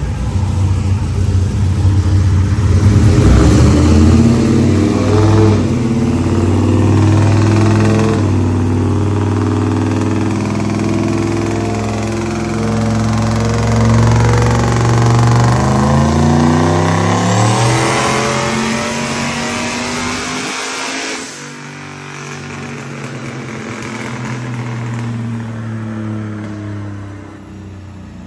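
Turbocharged LS V8 at full throttle on a chassis dyno, rising in pitch in several steps for about twenty seconds. About 21 seconds in it cuts off suddenly as the throttle closes, and the engine falls back to a lower, steadier note while the rollers slow.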